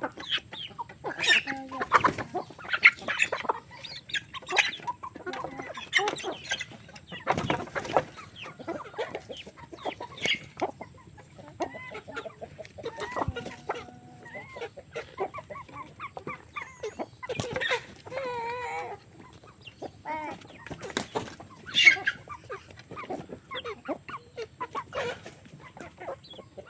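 Flock of free-range chickens clucking and calling over one another, many short overlapping calls, with a longer wavering call a little past halfway.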